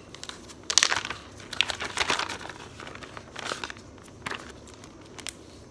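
Crinkling, rustling handling noises in short irregular bursts as the O-ring on the tractor's rear axle outer retainer is being replaced by hand.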